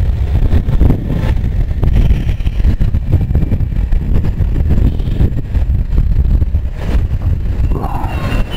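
Riding noise from an Aprilia SR 150 scooter moving through city traffic: a low, choppy wind rumble on the microphone over the scooter's single-cylinder engine running at a steady pace.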